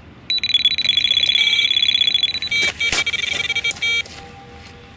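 Electronic carp bite alarms sounding a run: a fast, unbroken stream of high-pitched beeps as a fish takes line off the rod. A second, differently pitched beep pattern takes over about two and a half seconds in, with a knock near three seconds, and the beeping stops about four seconds in.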